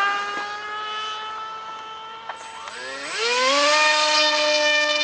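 Electric motor and propeller of a foam RC model plane whining steadily at part throttle, then spinning up with a rising whine about three seconds in as it is throttled up for the hand launch. It then holds a higher, louder steady whine.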